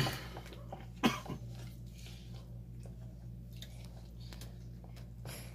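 A wooden craft stick stirring and scraping thick, wet plaster of Paris in a plastic bowl, making faint scattered ticks over a steady low hum. A short, loud sound, like a cough, stands out about a second in.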